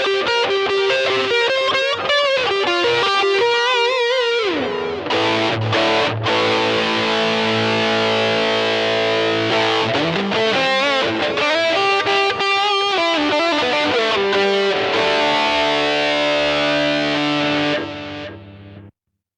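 Electric guitar played through a Zoom G1XN multi-effects pedal on a distorted patch: single-note lead lines with string bends, then held, ringing chords that fade out near the end.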